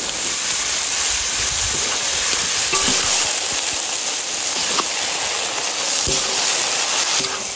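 Eggplant chunks tipped into hot oil in a large wok, sizzling with a steady hiss while a metal spatula stirs and scrapes them through chilies and minced pork.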